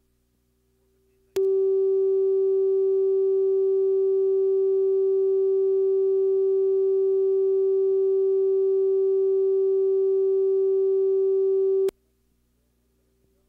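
Steady, loud, mid-pitched electronic test tone that comes in abruptly about a second in and cuts off sharply some ten seconds later. It is a TV station's cue tone on the broadcast tape, marking the slot for a commercial insert.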